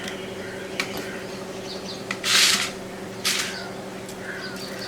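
Two short scraping or rasping sounds about a second apart, the first the longer, with a click shortly before them. A steady low electrical hum runs underneath.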